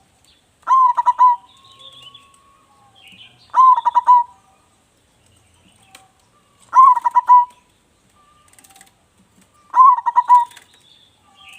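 Zebra dove (perkutut) singing four song phrases, about three seconds apart. Each phrase is a quick run of pulsed coos ending in a rolling note. Faint chirping comes between the phrases.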